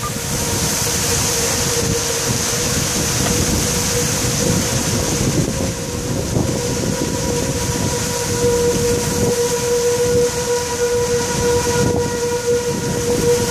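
Outdoor tornado warning siren sounding one steady tone, growing louder in the second half, over heavy rain and gusts of wind buffeting the microphone.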